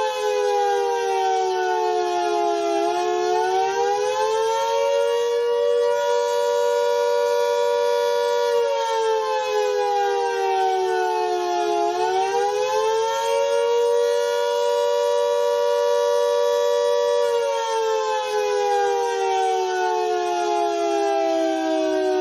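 World War II air raid siren wailing, two close tones sounding together: the pitch slides down, rises and holds for a few seconds, then does the same again, and slides down once more near the end.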